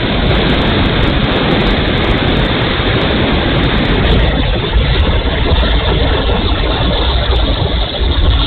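Wind buffeting the onboard camera's microphone on a small electric RC Hawker Hurricane model in flight, with its spinning propeller adding a steady rush.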